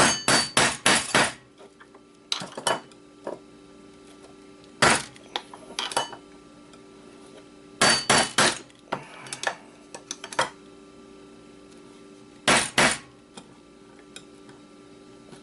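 Sharp metal-on-metal hammer blows and clinks on a hard drive's cast aluminium casing, ringing briefly. They come in short clusters: a quick run of about five at the start, then groups every couple of seconds.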